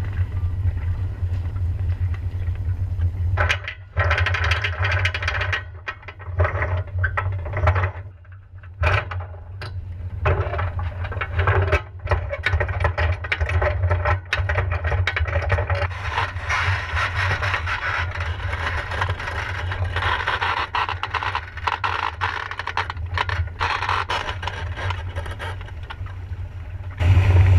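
Anchor chain rattling and scraping as the anchor is hauled aboard at a catamaran's bow, with many sharp clicks that come and go over a steady low rumble.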